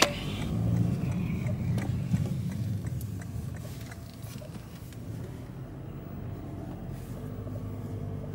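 Car driving slowly, heard from inside the cabin: a steady low engine and road rumble with a few faint ticks.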